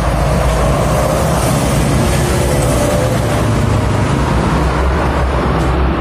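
Road traffic on a busy city street: a steady, loud rush of tyres and engines over a heavy low rumble, swelling briefly as a vehicle passes close about two seconds in.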